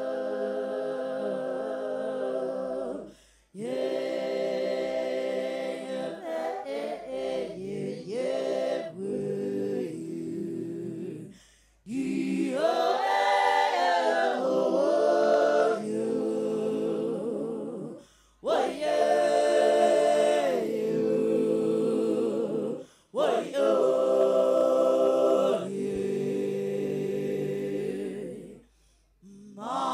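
A woman's voice singing without accompaniment through a microphone, in long held and sliding notes. Several phrases are separated by short pauses.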